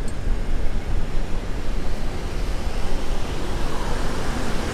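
Steady rushing noise of a mass bicycle ride, many bicycles rolling along the road together, over a deep low rumble.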